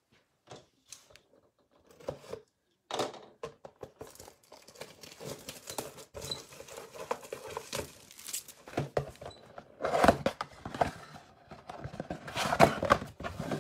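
Plastic wrap crinkling and tearing and cardboard rustling and knocking as a Topps Chrome 2020 Update Series mega box of baseball cards is unwrapped and opened. It starts as a few scattered crackles and gets busier and louder about three seconds in.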